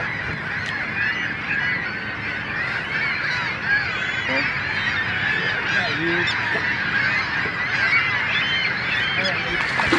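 A large flock of birds calling at once: a dense, continuous chorus of many short, overlapping calls.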